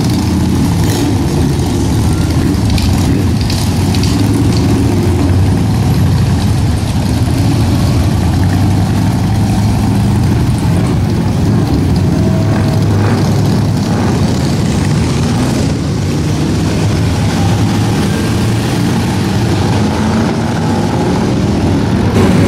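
Motorcycle engines running as a stream of motorcycles rides past in slow street traffic, with car engines mixed in: a steady, loud engine rumble throughout.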